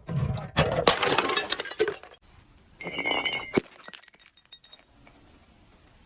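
Glass bottles breaking: about two seconds of dense crunching and crackling, then a second shattering burst about three seconds in with a ringing glass tone, followed by faint tinkles of small pieces.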